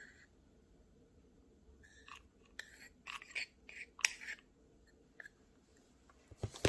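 A mini hot glue gun is worked against the back of a small round mirror, giving a cluster of short scratchy clicks and scrapes about two to four seconds in. A single knock follows near the end.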